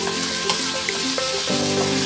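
Chicken pieces sizzling in a hot wok, stirred with a wooden spatula that gives a few light clicks and scrapes, under background music of held notes that change every second or so.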